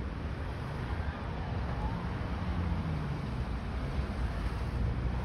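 Cars driving across a railroad grade crossing: a low, steady rumble of engines and tyres that grows a little louder toward the end.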